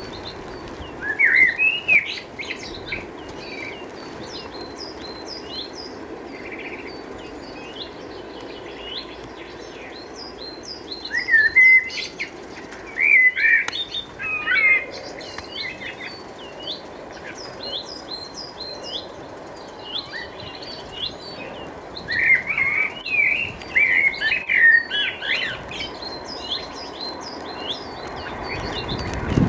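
Small songbirds chirping and twittering throughout, with louder clusters of chirps about a second in, around the middle, and again later on, over a steady low background rumble.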